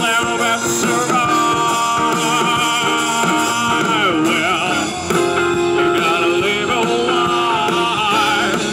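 Live rock band playing: electric guitars, keyboard and drums.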